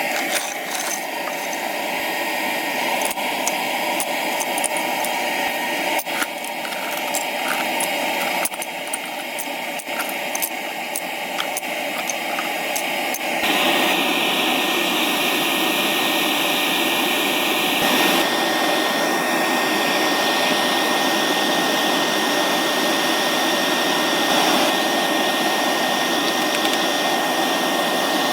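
Aluminium-melting foundry furnace running, its burner and blower making a steady rushing noise with a faint whine. Light clicks sound through the first half, and the noise steps up suddenly, louder and brighter, about halfway through.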